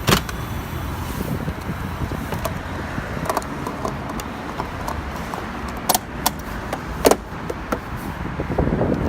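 Car engine running with a steady low rumble, with several sharp clicks and knocks over it.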